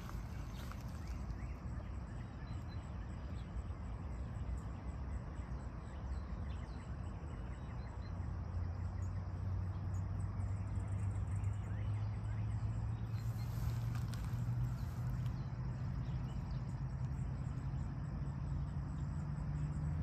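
Outdoor ambience: a low rumbling background with faint insect chirps. About eight seconds in, a low steady hum comes in, growing and rising slightly in pitch toward the end.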